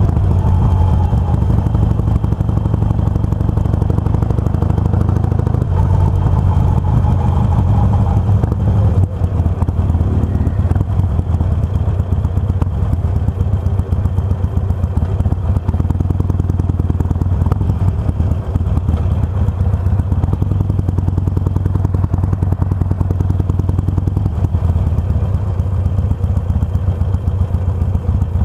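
Harley-Davidson Sportster 883R's air-cooled V-twin engine running steadily while the bike is ridden at cruising speed.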